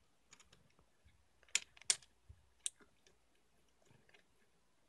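Small plastic toy parts clicking and tapping as a replacement face is worked onto a tiny toy head by hand, with three sharper clicks around the middle.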